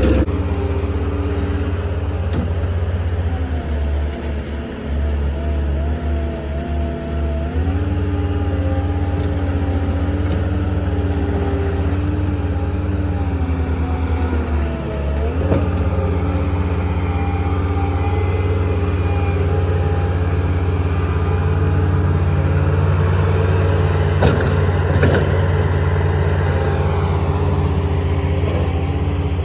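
Compact track loader's diesel engine running continuously under work, its pitch stepping up and down as the machine is worked.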